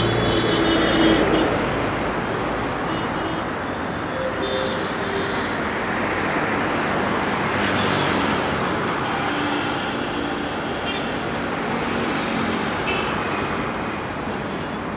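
Steady road traffic noise from vehicles passing on a city street, with short pitched tones sounding now and then.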